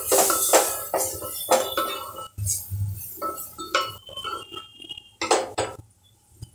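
A spatula stirring and scraping masala and spices in a stainless-steel pressure cooker, making irregular clinks against the pot about twice a second. The clinks die away near the end.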